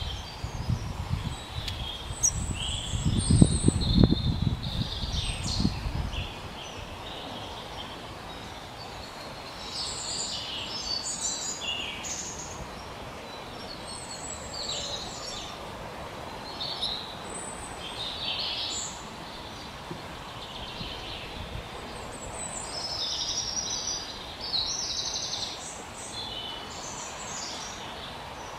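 Several songbirds chirping and singing in short high phrases throughout, as a woodland bird chorus. A low rumble underlies the first six seconds and is loudest around three to four seconds in.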